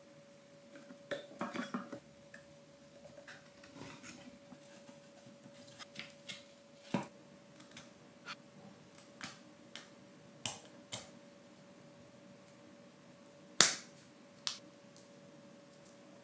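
Small laser-cut plywood parts of a wooden mechanical locomotive kit clicking and tapping as they are handled and fitted, in irregular sharp clicks with a louder snap near the end, over a faint steady hum.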